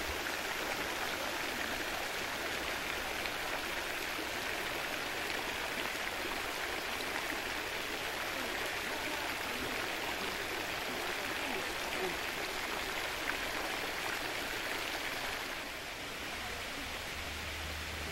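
Pond fountain jets splashing steadily into the water, an even rushing hiss; it drops in level near the end.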